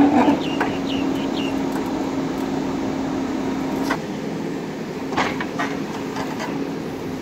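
Diesel engine of a JCB earthmoving machine running steadily with a constant hum, and a few short clicks and squeaks in the first second or so. The level drops slightly about four seconds in.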